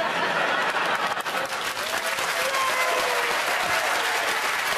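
Studio audience applauding steadily, with a few voices audible over the clapping.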